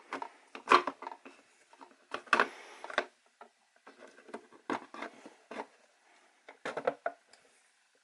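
Handling noises as a small collectible figure is fitted onto its display stand: a handful of sharp clicks and knocks spread over several seconds, with one longer scrape about two seconds in.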